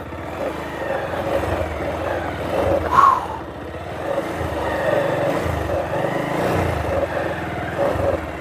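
Motorcycle engine running at low revs as the bike rolls slowly over a rough dirt track, with the revs rising and falling a few times. A brief higher sound comes about three seconds in.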